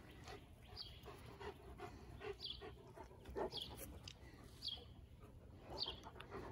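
Large dogs panting softly at close range, with a short high falling chirp that repeats about once a second.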